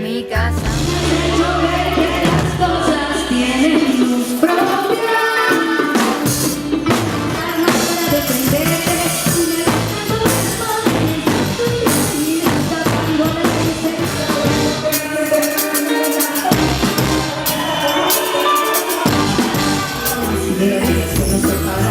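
A live band playing with singing, drums and percussion. The bass drops out twice, briefly.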